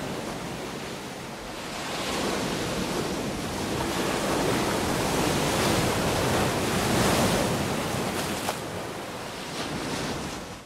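Ocean waves washing in, a steady rushing surf that slowly swells and eases, cutting off suddenly at the very end.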